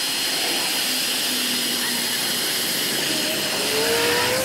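Bauer electric heat gun running steadily, its fan blowing a constant hissing rush of hot air onto a car badge to soften the badge's adhesive.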